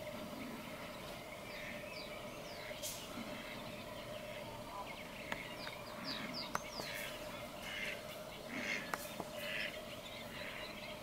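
Marshland birds calling and singing: many short, quick chirps and bits of song, busiest in the second half, with a few sharp clicks and a steady faint drone underneath.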